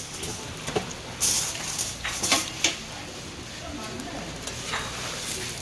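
Cooking at a pan-frying stall: metal utensils clinking and scraping against a pan, with light sizzling and a few sharp knocks. Faint voices are heard underneath.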